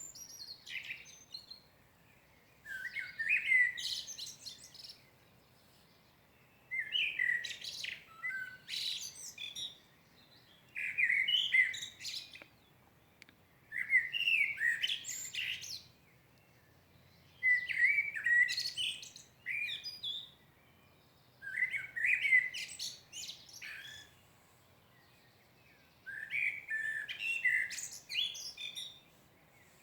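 A songbird singing in repeated phrases, each a couple of seconds long, with short pauses between them, about eight phrases in all.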